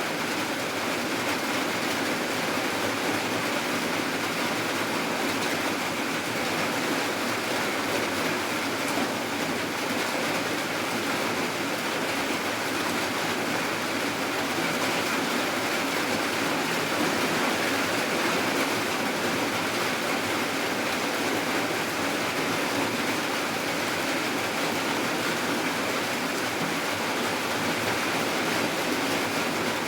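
Steady rain falling, an even hiss of water with no single drops or breaks standing out.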